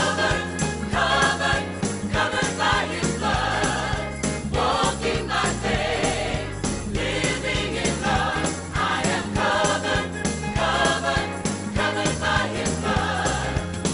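Gospel music: a choir singing over a band.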